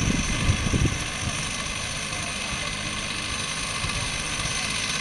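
Steady outdoor background hiss, with low rumbles of wind buffeting the microphone in the first second.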